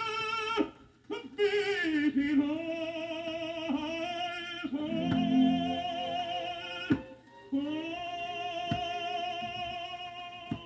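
Operatic tenor singing with orchestra, played back from an old Vitaphone sound-film disc. Long held notes with a wide vibrato are broken by two short breaths, about a second in and about seven seconds in. A few sharp surface clicks come from the record.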